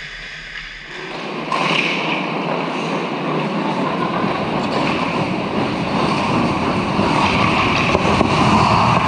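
Ice hockey play heard close up from a camera on the goal net: a steady rushing scrape of skates on the ice mixed with rink noise, stepping up sharply in loudness about a second and a half in.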